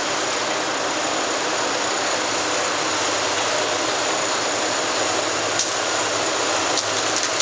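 Diesel engine of a Liebherr 944 tracked demolition excavator running steadily as it works at the building, with a few sharp knocks in the last two seconds.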